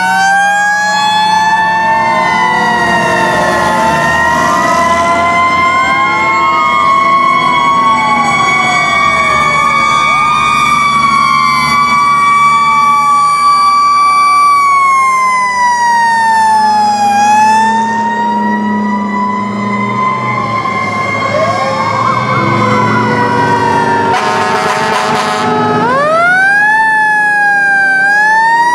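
Sirens of several antique fire engines wailing together as they pass. The strongest winds up slowly and holds a high wail, sags a little past halfway, then winds up again near the end, while other sirens glide up and down beneath it. Truck engines rumble low underneath, and a short loud blast cuts in near the end.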